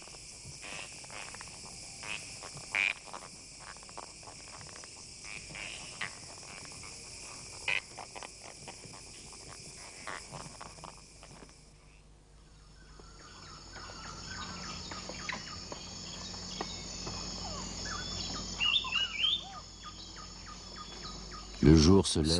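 Tropical rainforest night chorus: steady high trilling of insects and crickets, with scattered short calls of frogs and birds over it. About twelve seconds in, the mix changes to a softer insect drone, and chirping bird calls stand out near the end.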